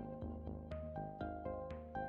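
Background music: an instrumental tune with a steady beat, its notes changing about twice a second.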